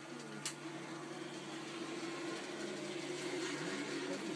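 Small electric motor of a model railway locomotive humming steadily as it pulls a coach along the track, with a single sharp click about half a second in.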